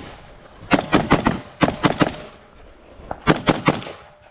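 AR-15 rifle firing in quick strings: three or four rapid shots about a second in, two or three more just after, one lone shot, then a last string of three or four near the end.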